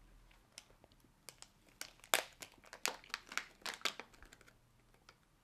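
Small clear plastic bag crinkling in the hands as it is opened, a quick run of crackles from about a second in until near the end.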